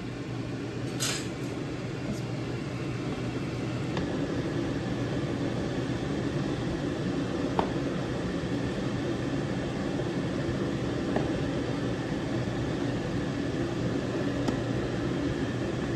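A steady mechanical hum that grows a little louder about four seconds in, with a few light clinks.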